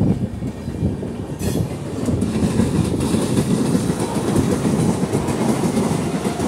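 Passenger train coaches of an Indian Railways express rolling past close by, steel wheels running over the rails in a steady rumble as the last vehicle, a luggage-and-generator car, goes by.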